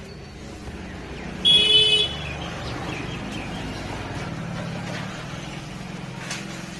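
A vehicle horn sounds once, a single loud, short toot about a second and a half in. Under it, a motor vehicle engine runs with a steady low hum.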